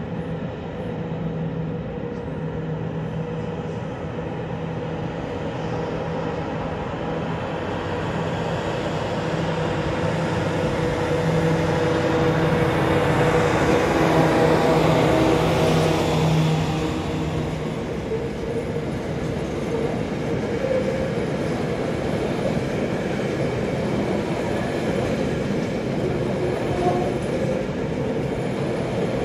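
Diesel locomotive hauling a train of work wagons past: its steady engine drone grows louder, is loudest about halfway through, then fades and leaves the steady rumble of the wagons' wheels rolling over the rails.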